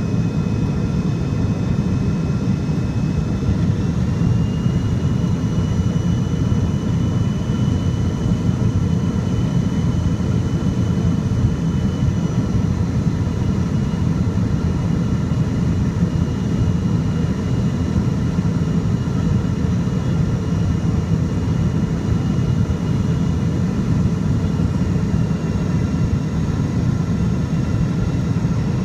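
Cabin noise inside an MD-80 airliner on final approach: a loud, steady low rush of airflow and engine noise from its rear-mounted Pratt & Whitney JT8D turbofans. A thin high engine whine runs over it, stepping up slightly in pitch about four seconds in and easing back down a little before halfway.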